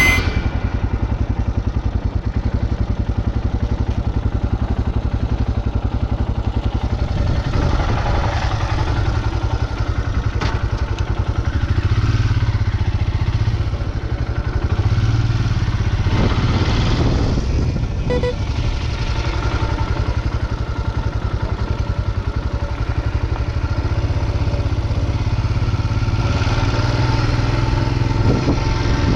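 Royal Enfield Himalayan 411's single-cylinder engine running as the motorcycle is ridden, with mild rises and falls in revs.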